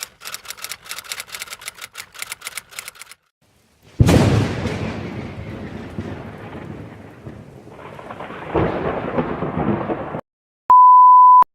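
A run of sound effects: rapid, even clicking for about three seconds, then a sudden thunderclap about four seconds in, its rumble fading and swelling again before cutting off. Near the end comes a short steady censor bleep tone.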